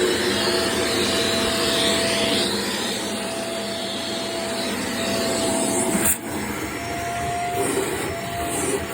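Vacuum cleaner running steadily while a staircase is vacuumed, its motor giving a steady whine. About six seconds in, the sound dips briefly with a short knock.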